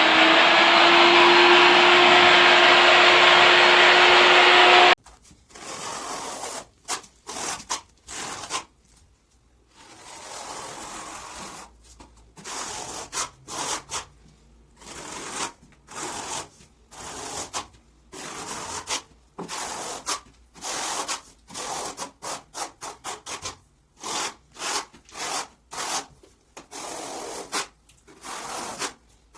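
A power tool runs steadily with a whine for about five seconds and stops abruptly. After that comes a long run of short, irregular rubbing and scraping strokes from hand work on a surface.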